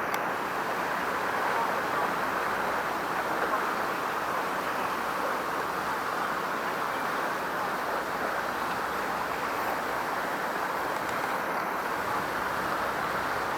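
Steady outdoor background noise, an even rush with nothing standing out and no change in level.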